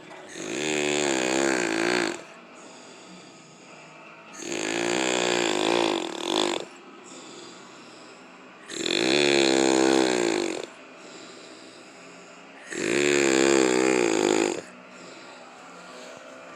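A drunk man snoring in his sleep: four long, loud snores of about two seconds each, coming roughly every four seconds, with quieter breathing between.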